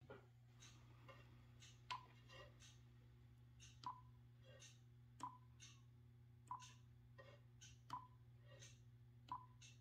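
Faint, short confirmation beeps from an Icom IC-7300 transceiver, about six of them at a steady pace, as its touchscreen menu is tapped through, each with a light fingertip tap on the screen.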